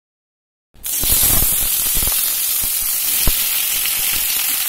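Silence, then about a second in, raw mango slices start sizzling loudly in hot mustard oil in a kadhai: a steady hiss with a few soft knocks among it.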